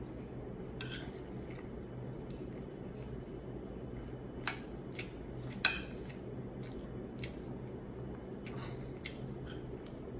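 A metal spoon clinking and scraping against a ceramic plate while scooping rice, in scattered light clicks with one sharper clink a little past halfway, with soft chewing between bites. A steady low hum runs underneath.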